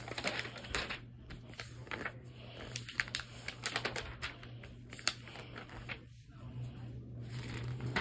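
Glossy magazine pages being handled and turned, giving irregular light clicks and rustling.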